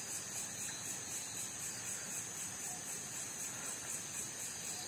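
Steady, high-pitched chorus of night insects, unchanging throughout.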